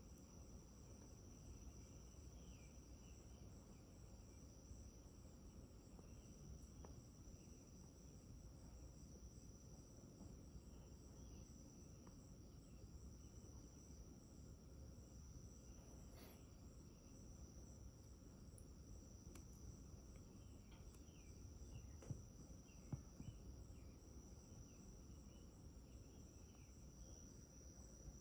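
Near silence, apart from a faint, steady, high-pitched insect trill and a few faint chirps, with a couple of small clicks near the end.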